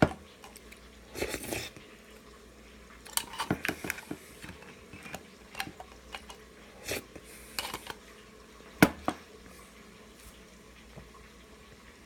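A metal spoon clinking and scraping against an opened tin can as beans are scooped out, in scattered short knocks with one sharp clink near the nine-second mark.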